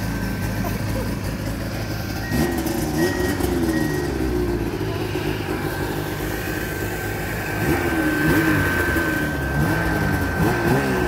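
Snowmobile engines running: a steady low rumble with a thin, steady high whine that gets louder about eight seconds in, and a few brief rises and falls in pitch.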